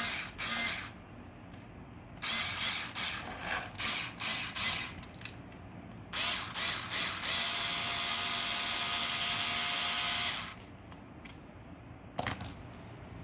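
Cordless mini electric drill running in a series of short trigger blips, then held on steadily for about three seconds before stopping suddenly.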